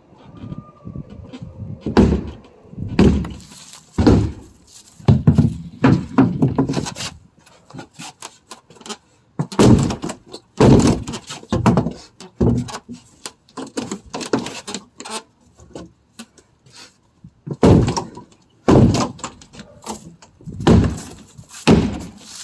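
Repeated heavy blows smashing a wooden clubhouse apart: irregular bangs and thuds, sometimes several in quick succession, with short pauses between groups.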